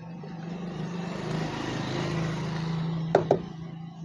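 A road vehicle passing, a broad rushing noise that swells and fades over about three seconds, over a steady low hum; two sharp clicks come just after it fades.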